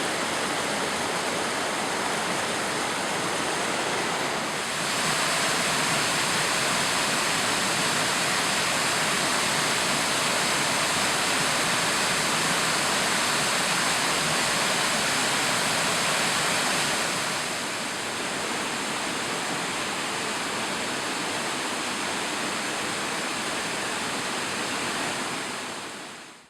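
Waterfall rushing steadily, a little louder from about five seconds in until about seventeen seconds in, then fading out just before the end.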